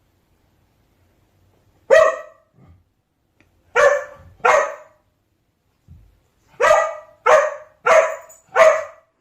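A dog barking: seven short, sharp barks, one on its own, then a pair, then a quick run of four.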